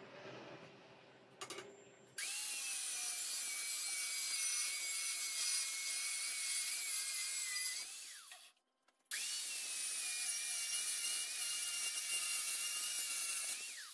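Handheld angle grinder with a thin disc cutting rusty steel flat bar, in two runs of about five to six seconds each. Each run is a loud hiss with a steady high whine that drops in pitch at the end. Before them come a few faint handling knocks.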